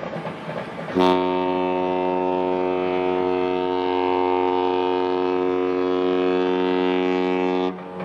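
Cruise ship MS Costa Victoria's horn sounding one long, steady blast of about six and a half seconds, starting about a second in.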